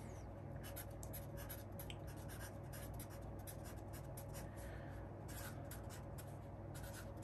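Felt-tip marker writing block capital letters on paper: a quick, faint run of short strokes.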